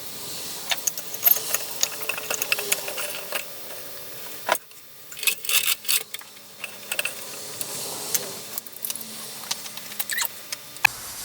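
Small parts of a router being handled and fitted back together: scattered clicks, taps and light rattles at an irregular pace, over a steady hiss.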